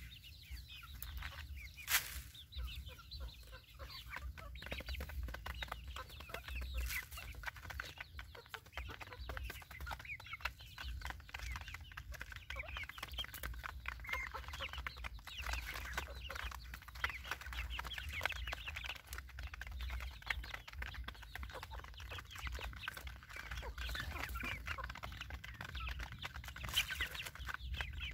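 A flock of young chickens clucking and peeping while they peck grain from a metal pan, the calls growing denser as more birds crowd in. Many small taps run through it, with one sharp click about two seconds in.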